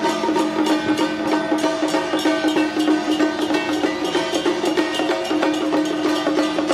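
Traditional Taiwanese temple-procession music: a sustained pitched melody over fast, dense percussion with wood-block-like clicks, accompanying the troupe's dance.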